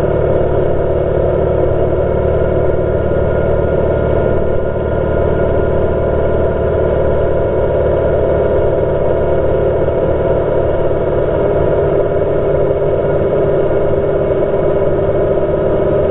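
Honda CBR600RR inline-four engine and wind noise heard from an onboard camera, slowed down into a low, steady drone. The engine note holds one pitch, with no revving or gear changes, while the bike is held at lean through the corner.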